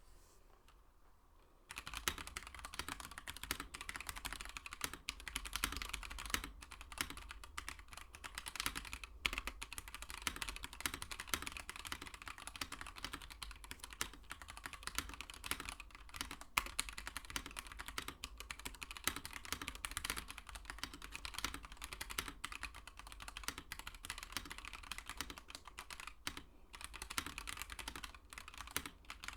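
Mechanical keyboard with yellow switches, PBT keycaps, an aluminium plate and an acrylic case, typed on steadily and quickly; the keystrokes start about two seconds in after a short near-silent pause.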